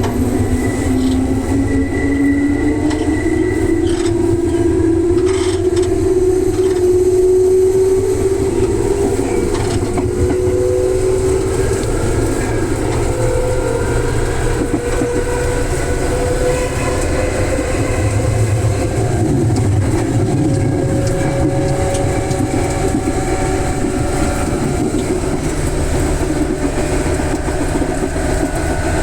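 Electric commuter train's traction motors whining steadily higher in pitch as the train accelerates, over the rumble of wheels on the rails.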